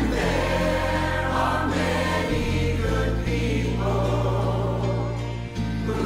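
Mixed choir of men's and women's voices singing together in harmony over an instrumental accompaniment with held bass notes that change a few times.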